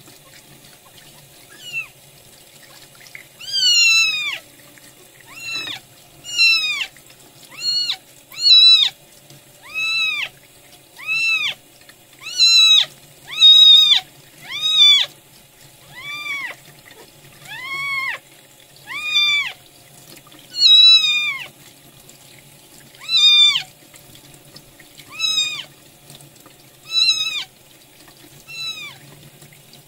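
Newborn kitten mewing loudly and insistently, about twenty cries one every second or so, each rising then falling in pitch, over a running tap. It is crying while its belly and bottom are rubbed under the water to make it pass its first stool.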